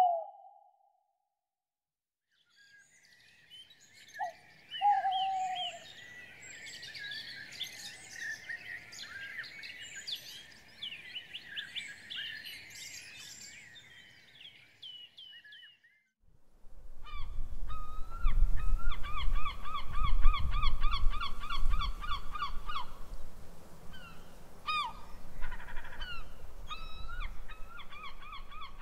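Outdoor nature ambience: many birds chirping and singing together, with two short lower calls about four seconds in. About halfway through, a low rumble comes in under rapid, evenly repeated honking calls.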